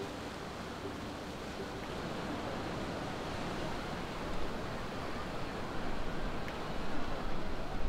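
Sea waves and surf, a steady rushing that grows slowly louder.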